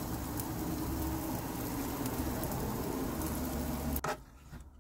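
Mushrooms sizzling in a frying pan on a portable gas stove. The sizzle stops suddenly about four seconds in, followed by a couple of light knocks.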